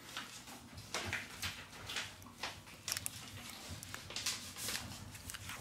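Handling noise as the SIM tray is pushed back into a Xiaomi Mi8 Lite wrapped in clear plastic film: irregular crinkling and rustling with a few small sharp clicks, the sharpest about three seconds in.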